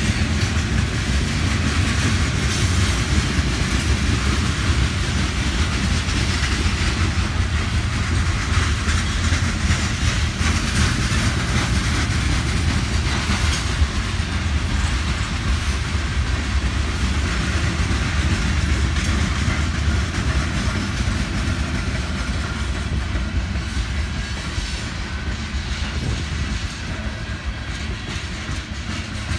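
Freight train of open-top cars rolling past: a steady rumble of steel wheels on rail with a clickety-clack over the rail joints.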